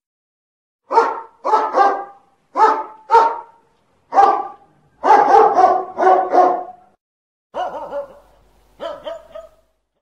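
Dog barking repeatedly, about a dozen short barks in uneven bunches, the last couple quieter.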